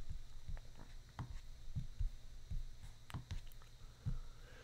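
A computer mouse clicking faintly several times at irregular intervals while a tier-list item is dragged into place, over a low steady hum.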